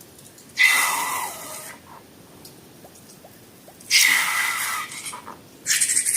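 Air squeezed out of a balloon in short hissing, squeaky bursts: two bursts of about a second each, and a third starting near the end.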